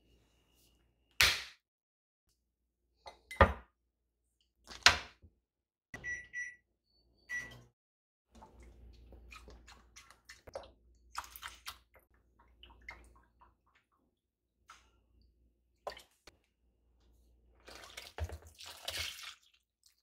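Kitchen preparation sounds: a few sharp knocks and clunks, then two short electronic beeps. Milk pours from a carton into a glass measuring jug, followed by light clatter, and near the end a liquid mixture pours into a bowl of flour.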